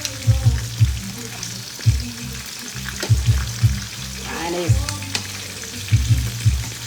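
Fish and potatoes frying in olive oil in a pan: a steady sizzle of hot oil, with low thudding pulses underneath.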